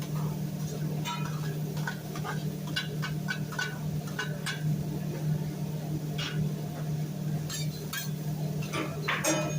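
Metal utensils clinking and tapping on a teppanyaki griddle, many short sharp clicks in irregular runs with a denser clatter near the end, over a steady low hum.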